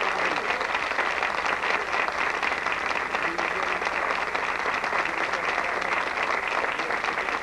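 Live concert audience applauding steadily.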